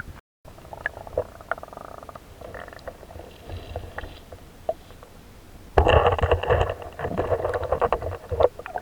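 Water splashing and sloshing in a shallow river, with a low rumble under it; it gets much louder and busier about six seconds in.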